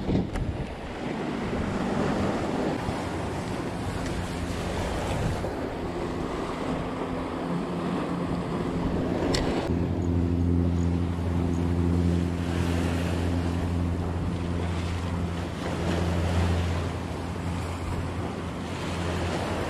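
Sea surf breaking and washing over a rocky shore, with wind buffeting the microphone. A steady low hum sits under it through the middle, strongest from about ten to seventeen seconds.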